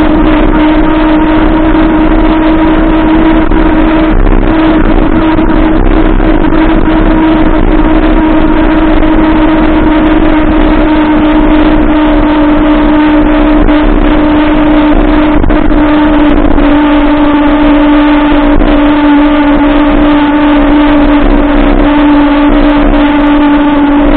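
Electric mountain bike in motion: a steady whine holding one pitch, with loud wind rush on the action camera's microphone.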